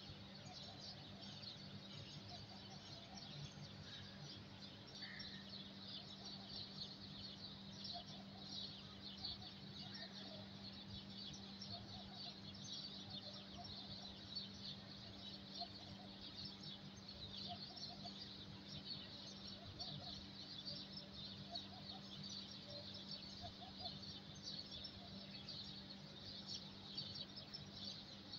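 Faint chorus of many small birds chirping at once, dense and continuous, over a steady low hum.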